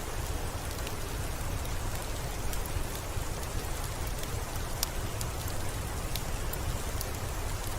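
Steady rain falling, with a low rumble underneath and scattered faint sharp clicks.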